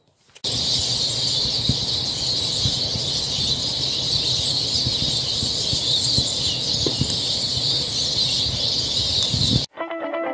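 A dense chorus of many small birds calling at once: a thick, high, continuous chatter with a low rumble underneath. It cuts off suddenly near the end.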